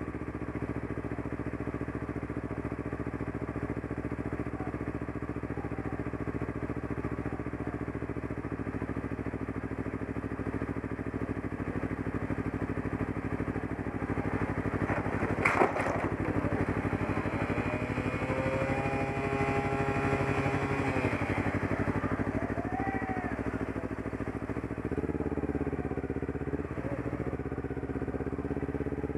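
Motorcycle engine idling steadily, with one sudden loud bang about halfway through: a motorcycle courier hitting a pedestrian up ahead. Near the end the engine note changes as the bike pulls forward.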